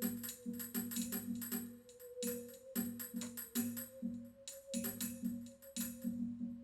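Experimental percussion music: rapid clusters of sharp struck clicks over a low pulsing tone and a held tone that wavers slightly in pitch.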